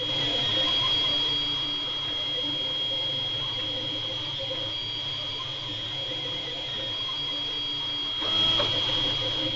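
FDM 3D printer printing PLA: a steady high whine with fainter motor tones that shift as the print head moves, louder for a moment near the end.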